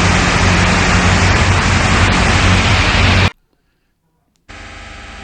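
Steady rain noise with a low hum underneath, cutting off abruptly about three seconds in. After a second of silence, a quiet drone with held tones starts.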